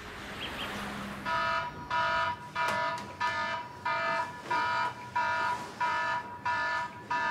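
Electronic wake-up alarm beeping. Even, evenly spaced beeps start about a second in and repeat about three every two seconds.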